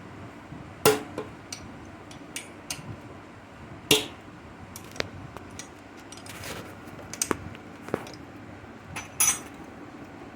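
Hand tools clinking and knocking on metal motorcycle engine parts in a repair: irregular sharp metallic clinks, the loudest about a second in, at about four seconds and near the end.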